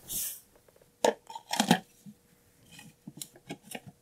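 Hard plastic parts of an Axiom NeutraPal condensate neutralizer canister being handled and fitted back together: a short rustle, then sharp clicks and knocks about a second in and again half a second later, with a few lighter ticks after.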